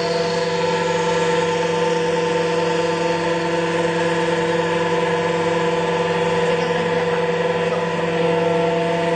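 Used-tyre bead-wire pulling machine running with a steady, even hum.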